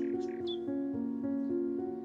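Background music of held keyboard notes that change every half second or so, with a few short bird chirps over it.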